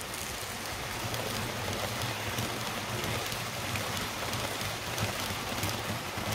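H0-scale model ICE trains running on the layout track: a steady whirring rumble of wheels on rail and motors with a low hum. It gets a little louder in the middle as one trainset passes close.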